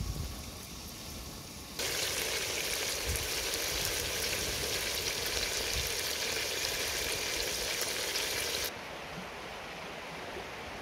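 Frog meat and onions sizzling in an open pot over a wood fire: a steady hiss that starts suddenly about two seconds in and stops suddenly about two seconds before the end.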